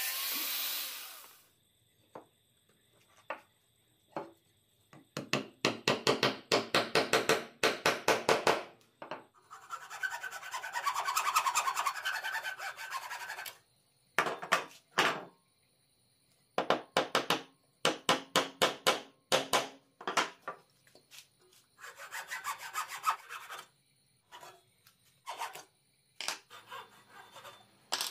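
A drill press boring into pine with a Forstner bit stops about a second and a half in. Then comes a hacksaw cutting through wooden dowel rod in several bursts of quick, even back-and-forth strokes, with short pauses between them.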